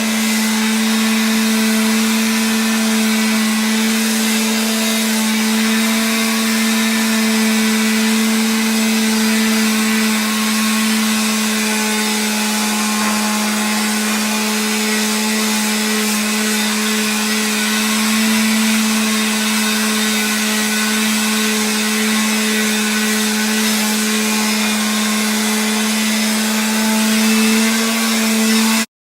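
Small electric motor running steadily at one constant pitch, a hum with a loud hiss over it, cutting off suddenly at the end.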